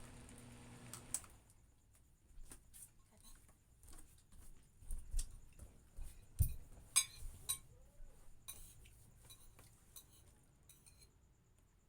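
Spoons and forks clinking and tapping against plates and dishes during a meal: a scatter of short sharp clicks, busiest about six to eight seconds in.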